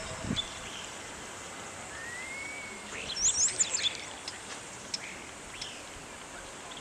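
Birds chirping over a steady outdoor hiss, with a quick cluster of high, sweeping chirps about three seconds in.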